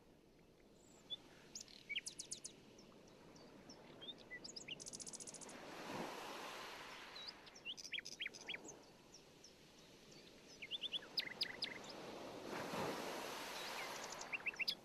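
Birds chirping in quick, high twittering runs over a soft background of rushing noise that swells up and dies away twice, about 6 seconds in and again near 13 seconds.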